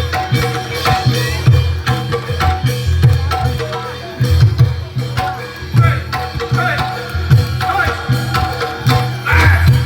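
Barongan accompaniment music: hand drums beating a busy rhythm under ringing metal percussion tones and a bending melody line.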